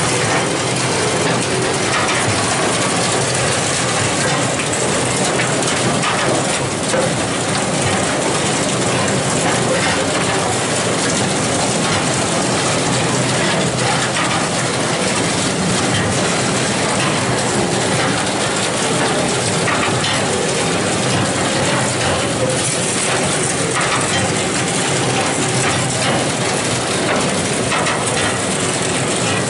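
Wróblewski WK-4 chain manure scraper running: its heavy link chain and flights rattle and clank steadily up the inclined steel trough and over the head sprocket.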